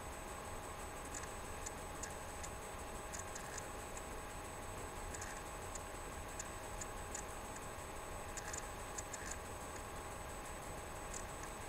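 Room tone: a steady hum with faint, irregular high ticking clicks throughout.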